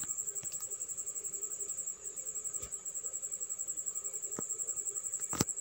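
A cricket chirping in a steady, rapid high-pitched trill, with three faint clicks in the second half.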